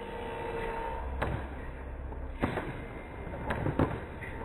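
Fireworks going off: four sharp bangs at uneven intervals, the last two close together and the last one the loudest.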